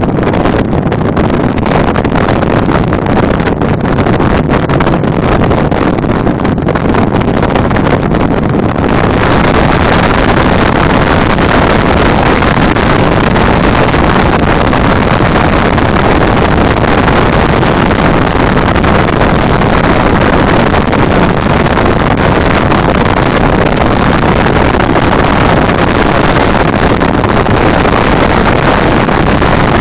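Loud, steady rush of wind and road noise from a vehicle driving along an airport runway, with wind buffeting the microphone. The noise turns louder and hissier about nine seconds in.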